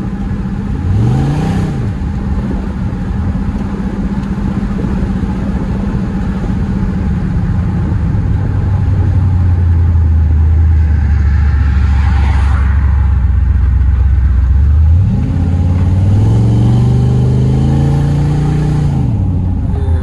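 LS-swapped Camaro Z28's V8 engine driving: a short rev about a second in, then a deep steady drone, with the revs climbing again a few seconds from the end and falling off.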